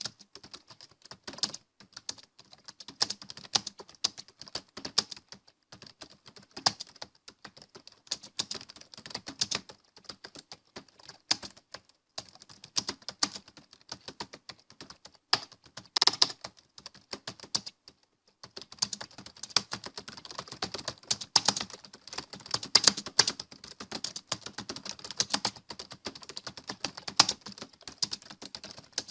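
Typing on a computer keyboard: a quick, irregular run of key clicks that pauses for about a second partway through and then picks up again, more densely.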